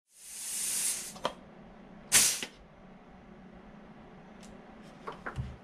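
Pneumatic rivet squeezer cycling on compressed air as rivets are set in an aluminium rudder rib and skin: a hiss of about a second, a click, then a short, loud burst of air about two seconds in, followed by a few light clicks of the tool.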